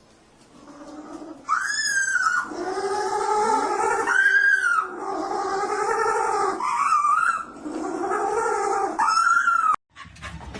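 A dog howling in a string of long, drawn-out calls that rise and fall in pitch, stopping abruptly near the end.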